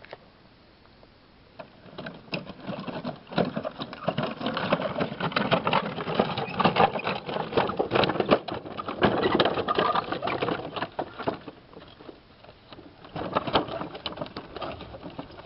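Wooden wheels of a two-wheeled medieval handcart loaded with stones rolling over gravel, a dense run of crunching and clattering that starts about two seconds in, eases near the end and picks up again.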